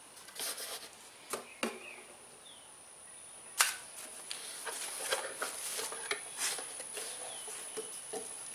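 Scattered light clicks and knocks of a plastic oil funnel being handled and lifted out of a mower engine's oil fill, the sharpest click about three and a half seconds in. A faint steady high-pitched whine runs underneath.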